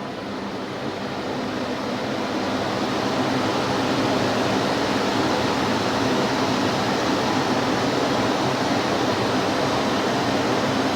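Vintage Philips P74 canister vacuum cleaner running: a steady rush of air over a soft-sounding motor hum. It grows louder over the first few seconds, then holds steady.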